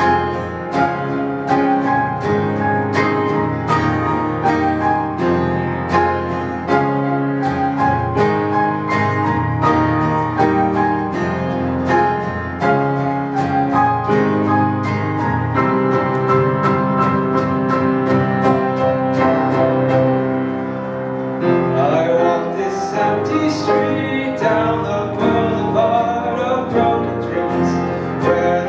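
Live acoustic guitar strumming a steady rhythm with grand piano chords underneath. A male voice comes in singing about three-quarters of the way through.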